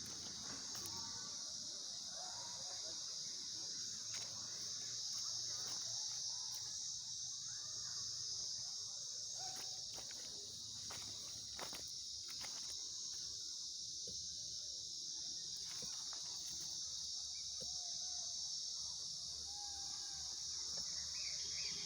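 Steady high-pitched insect chorus, with a few sharp clicks or knocks scattered through it.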